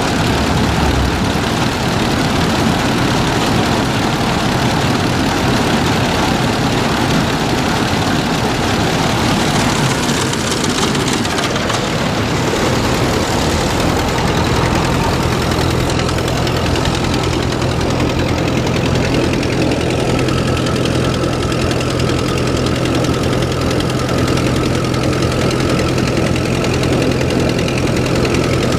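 Gleaner E combine running steadily, its engine and threshing works turning while trash is run out of the machine. About halfway through, the high hiss eases and a steady low hum comes to the fore.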